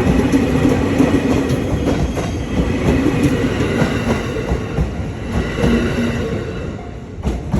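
A train running through a level crossing, its wheels clacking over the rail joints, the sound easing off toward the end.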